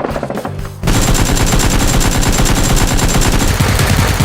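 Rapid machine-gun fire sound effect over background music, getting louder and denser about a second in.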